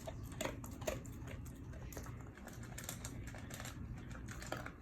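Dog eating, an irregular run of small crunching clicks.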